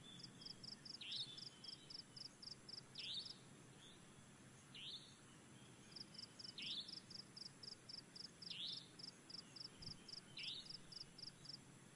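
Faint nature ambience of high chirping. A steady run of short, high pulses, about three a second, stops and starts again, and a brief swooping call repeats about every two seconds.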